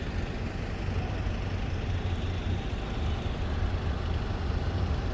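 Heavy engine running steadily, a continuous low rumble over a noisy background.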